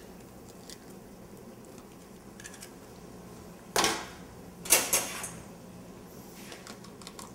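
Stovetop pressure cooker being handled: two short, sharp noisy bursts about four and five seconds in, over a low kitchen background with faint ticking.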